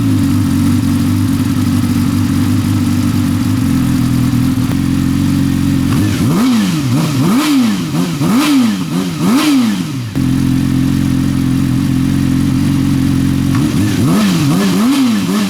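2017 Yamaha YZF-R6's inline-four engine idling steadily, with the throttle blipped about once a second, four times in the middle and again near the end, the revs rising and falling each time. The engine is running just after an oil change so the fresh oil can circulate through it.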